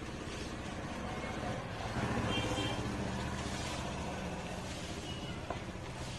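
A motor vehicle's engine running nearby, swelling about two seconds in and slowly fading as it passes.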